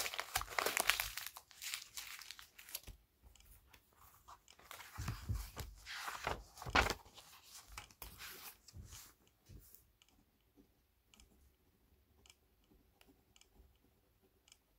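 Paper rustling and tearing in bursts through the first seven seconds or so, then fainter scattered light ticks.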